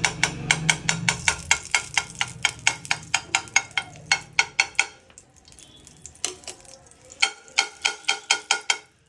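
A metal spoon rapidly tapping and scraping against a metal frying pan as ghee is spread around it, about five strokes a second. The strokes pause about five seconds in and start again shortly after.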